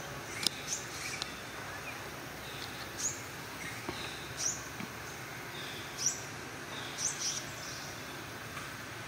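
Short, high bird chirps every second or two over a steady outdoor background hiss.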